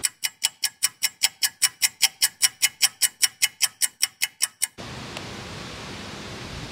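Ticking clock sound effect, about five even ticks a second, marking time passing while the pan heats. It cuts off suddenly about five seconds in, leaving a steady background hiss.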